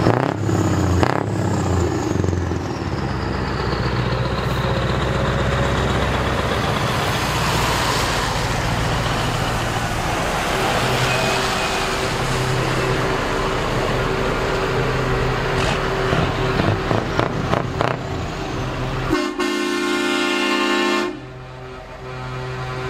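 Heavy diesel show trucks driving past one after another on loud open exhausts, with a truck horn sounding for about two seconds near the end.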